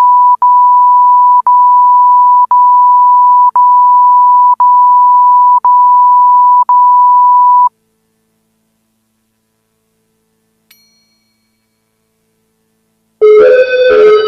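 A single high-pitched electronic alert tone, steady and loud, broken by short gaps about once a second, stops about 8 s in. After a few seconds of silence, keyboard music starts near the end.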